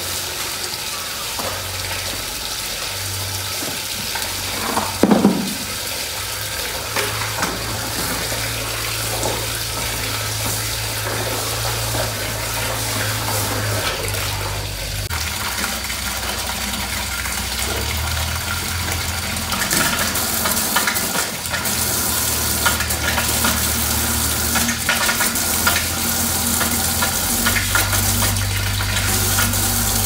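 Steady hiss of water running from a hose into a plastic bucket while lime powder is mixed into it, with a few sharp knocks of the buckets, one about five seconds in.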